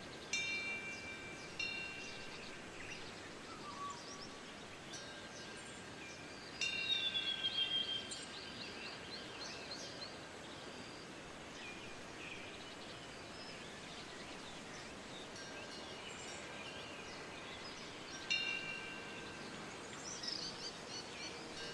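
A metal temple wind bell chimes several times, each strike ringing on, over a steady wash of wind. Birds call and chirp between the strikes.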